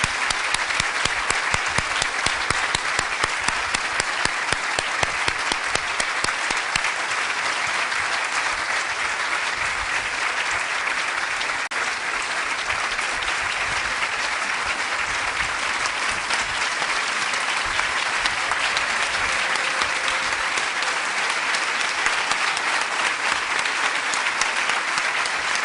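A large audience applauding, with dense, steady clapping that does not let up: a standing ovation.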